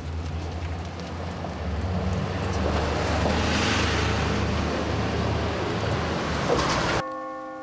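Bus engine running as it passes close by, its low rumble and road noise swelling to a peak about halfway through. Near the end the sound cuts suddenly to a church bell ringing.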